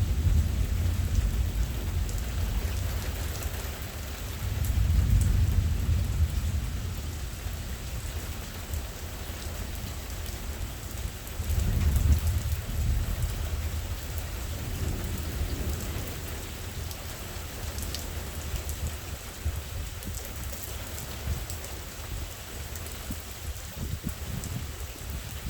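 Steady heavy rain falling, with thunder rumbling several times, the loudest rolls near the start, about five seconds in and about twelve seconds in.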